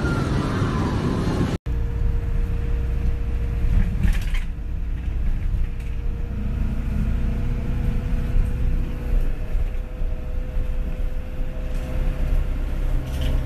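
Inside a moving bus: steady low engine and road rumble with a faint steady whine, coming in after a sudden cut about a second and a half in from a short stretch of street noise.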